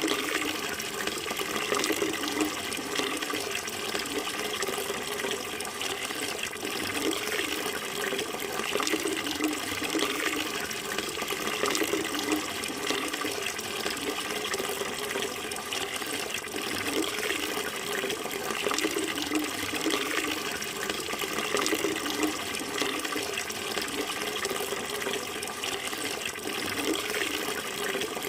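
Running water flowing steadily without a break.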